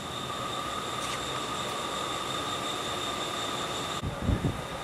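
Steady factory machinery noise with a high-pitched whine held on one pitch. About four seconds in the sound changes and a few low thumps follow.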